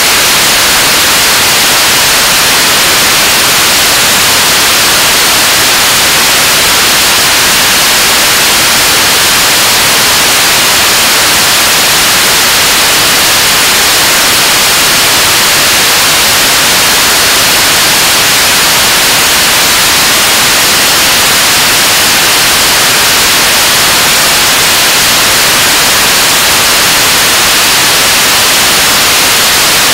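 Korean launch vehicle 7-tonne-class liquid-propellant rocket engine firing steadily on a test stand: a loud, unchanging rush of exhaust noise, heavier in the treble than the bass.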